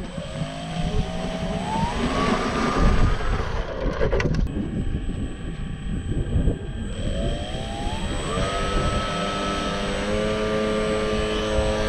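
Electric motor and propeller of a 3D-printed PLA RC plane spinning up with a rising whine and holding, dropping off about four seconds in. It then spins up again and holds a steady high whine, the throttle run-up for a hand launch. Low wind rumble on the microphone underneath.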